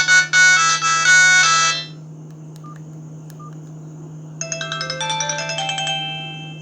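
Sony Ericsson polyphonic ringtones playing from a Verykool S135 phone's loudspeaker. One tune ends about two seconds in. After a pause with only a low hum, a different bright melody of quick, short notes starts near the end.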